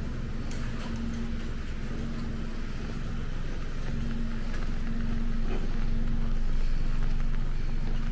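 A motor vehicle's engine running steadily at one low, unchanging pitch over a deep rumble, growing louder about halfway through and easing off near the end.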